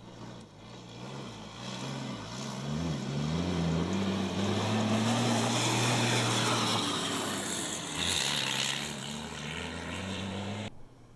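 MAN rally truck's diesel engine running hard as the truck drives past over loose gravel and sand, with tyre and stone noise. The engine note rises about two to three seconds in and is loudest midway, then the sound cuts off suddenly near the end.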